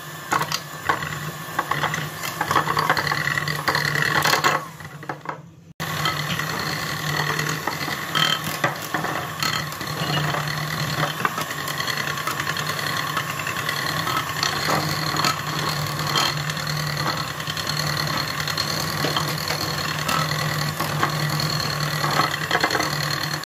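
Electric hand mixer running steadily, its twin beaters whipping chilled cream in a glass dish, with scattered light clicks. The sound dips briefly about five seconds in, then runs on.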